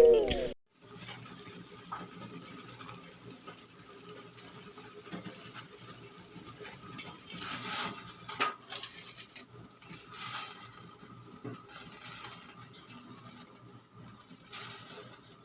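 Quiet kitchen handling sounds: scattered light clinks and clatters of pots and utensils, with a few brief louder rustling or scraping noises about halfway through, a little later, and again near the end.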